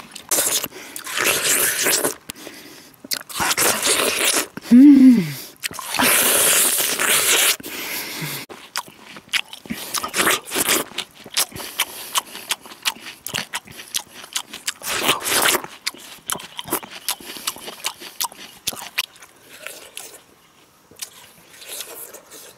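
Watermelon being bitten and chewed close up: wet crunching bites and chewing in irregular bursts. A short voiced hum comes about five seconds in.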